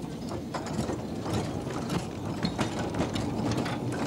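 Narrow-gauge mine tramway locomotive and open passenger cars rattling and clanking along the rails, with frequent sharp clicks over a steady rumble.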